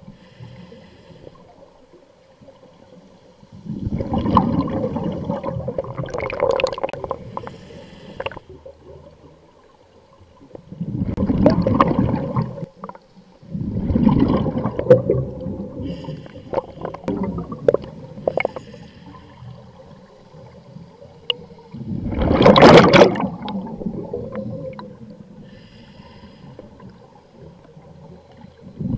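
Scuba diver breathing through a regulator underwater: four gurgling rushes of exhaled bubbles, each lasting one to four seconds, the loudest about three-quarters of the way through, with a faint hiss of inhalation in the gaps between.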